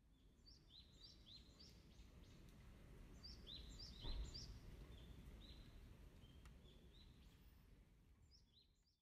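Faint outdoor ambience with small birds chirping: short high chirps in quick runs of two or three, over a low rumble that fades in and fades out. A soft low bump about four seconds in.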